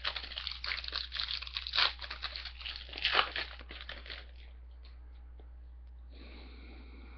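Foil wrapper of a hockey card pack crinkling and tearing open for about four seconds, with louder crackles about two and three seconds in.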